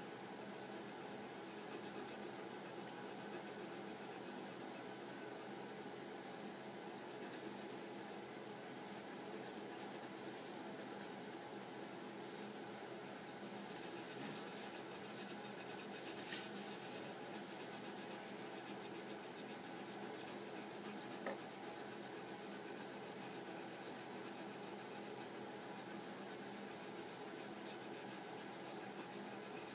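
Colored pencil scratching steadily on paper as a drawing is shaded in.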